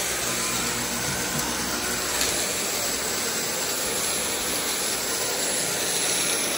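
Dyson V8 cordless stick vacuum running steadily on max power, with the debris it has sucked up spinning around inside its bin.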